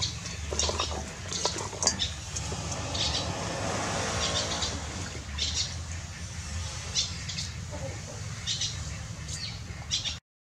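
Birds chirping in short calls about once a second, over a steady low hum.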